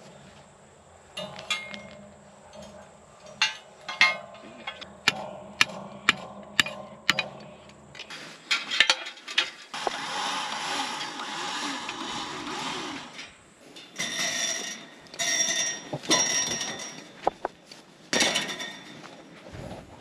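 Sharp metallic clinks and knocks, several a second at times, from fence wire and steel posts being handled and worked, over a faint steady hum; these give way to stretches of rustling noise and short bursts.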